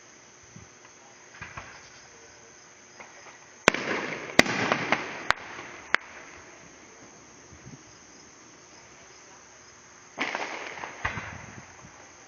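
Fireworks going off: four sharp bangs between about four and six seconds in, trailing off in echo and crackle, then another burst with crackling about ten seconds in. Crickets chirp steadily and faintly in between.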